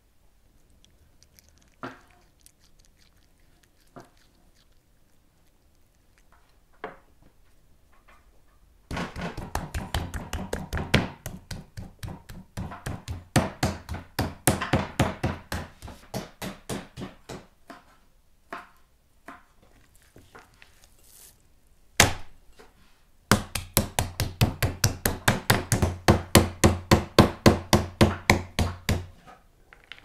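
Kitchen knife dicing a yellow bell pepper on a wooden cutting board: after a few faint taps, two runs of quick, rhythmic chopping strokes, about five or six a second, with a single sharp knock between them.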